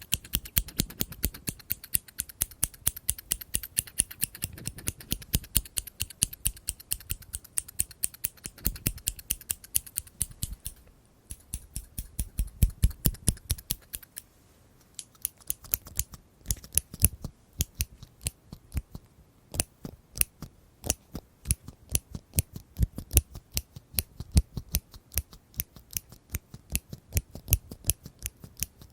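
Scissors snipping again and again in quick, even strokes, several sharp clicks a second, with two short breaks partway through.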